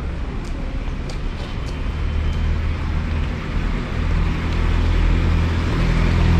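Street traffic with a motor vehicle's engine running close by, a steady low hum that grows louder from about four seconds in.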